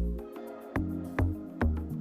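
Background music: an electronic track with a heavy bass kick about twice a second under held chords.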